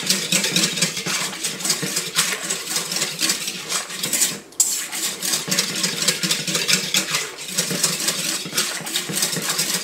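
Wire whisk beating a thin yeast, sugar and water mixture in a stainless steel KitchenAid mixer bowl: fast, continuous metallic clicking and scraping of the wires against the bowl, with a brief pause a little under halfway through.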